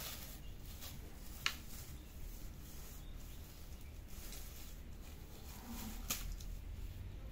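Faint rustling of a pink plastic-streamer cat teaser as it is waved and batted, with two sharp clicks, one about a second and a half in and one about six seconds in, over a low steady rumble.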